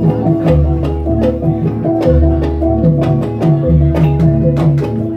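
Live music accompanying a jathilan horse dance: a repeating melody of pitched struck notes over sharp drum strokes, with a deep low note about every second and a half.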